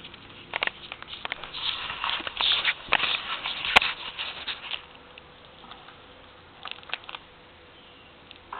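Handling noise: a run of irregular clicks, knocks and rustling in the first half, with one sharp click near the middle, then a few faint clicks later on as the equipment is handled and the recording device is set down.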